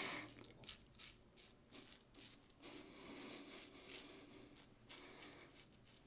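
Merkur 37C slant safety razor with a Derby blade scraping through longer stubble under shaving cream: a run of short, faint scraping strokes. These are small strokes on a first pass over a grown-out beard.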